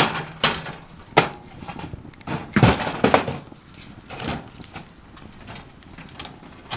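Wood fire crackling in the firebox of a small titanium tent stove: irregular sharp pops and cracks, the loudest about two and a half seconds in.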